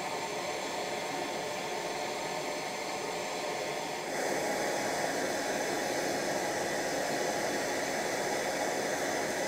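Two hand torches, one propane and one MAP gas, burning into an insulated firebrick mini forge with a steady hiss. The sound steps up louder and fuller about four seconds in.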